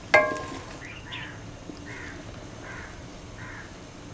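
A sharp ringing clink of utensil on dish, then a crow cawing about five times at an even pace.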